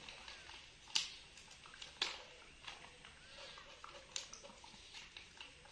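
Young macaque eating food fed to it by hand: a few sharp clicks and mouth smacks against a quiet room, the loudest about a second and two seconds in.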